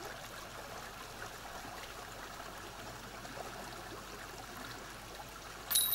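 Steady faint outdoor background hiss, then near the end a disc golf disc strikes the chains of the basket with a sudden, brief metallic ringing: the par putt going in.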